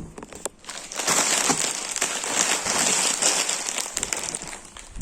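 Plastic chip packets crinkling and rustling as they are handled, a dense crackle that starts about a second in and dies away near the end.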